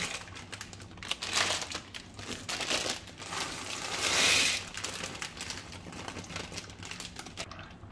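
Plastic bags of dry elbow macaroni crinkling and rustling as the pasta is shaken out into a pot of boiling water, with a louder rush of pouring about four seconds in.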